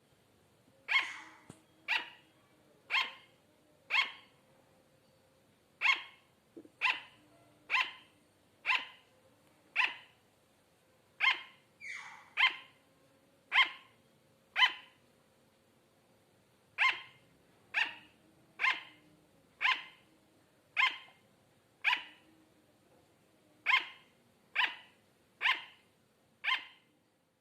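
Sugar glider barking: about two dozen short, sharp yaps at roughly one a second, with a few brief pauses.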